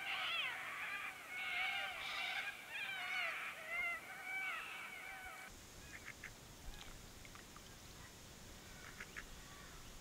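Several wild birds calling together, a busy chorus of rising and falling whistles and chatter. About halfway through it cuts off, and only a few short, faint calls follow.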